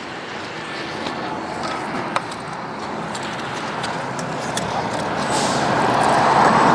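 Road vehicle noise that swells steadily louder as a vehicle approaches, with a few faint clicks from strap buckles being handled.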